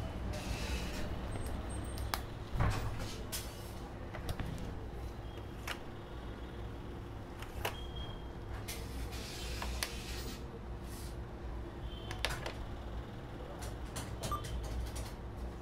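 ATM in use during a cash withdrawal: a string of mechanical clicks and clunks, a few short high beeps and two brief whirrs from the card and cash mechanisms, over a steady low hum. The loudest clunk comes about two and a half seconds in.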